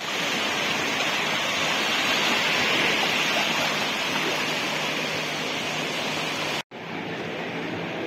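Small sea waves breaking and washing up on a sandy shore, a steady surf hiss. About two-thirds of the way through the sound cuts off abruptly and resumes a little quieter, now with a faint steady low motor hum under the water noise.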